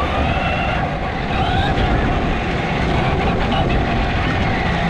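A steady electric motor whine, one even tone that holds through, over low wind rumble on the microphone while riding.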